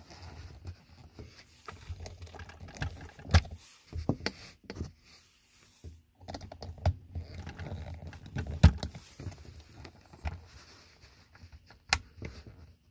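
Plastic clicks, taps and rattles from hands handling a plastic singing toy, fitting its clip-on hat piece and working the slide switch on its base. A few sharper clicks stand out, one about a second before the end.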